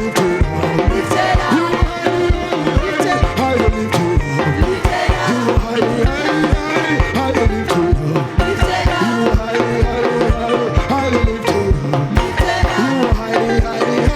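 Praise-and-worship music: singing over a band, driven by a steady, fast drum beat.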